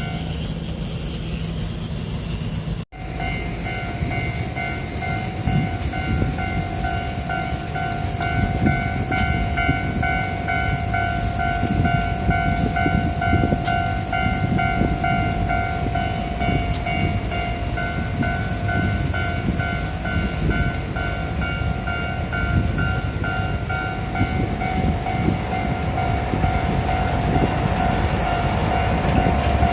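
Japanese railway level-crossing alarm ringing its repeating electronic tone while a train rumbles past over the crossing. The sound cuts out for a moment about three seconds in.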